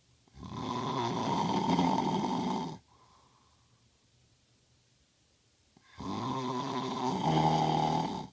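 A man snoring in his sleep: two long snores, each lasting about two and a half seconds, the second starting about six seconds in.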